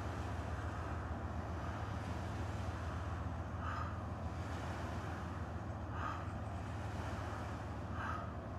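A person breathing hard after running, three audible breaths about two seconds apart, over a steady low rumble.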